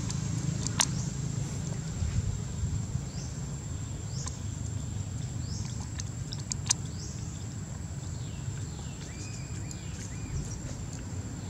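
Outdoor ambience: a steady low rumble under a thin, steady high-pitched tone, with three sharp clicks (about a second in, again around four seconds and six and a half seconds) and a few short high chirps.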